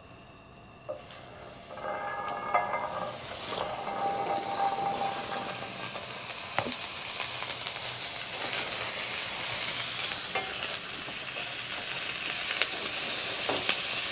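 Onions, bell peppers and andouille sausage frying in butter in a hot pan, sizzling. The sizzle starts a second or two in and grows steadily louder as the food heats, with occasional clicks and scrapes of a spatula stirring it in the pan.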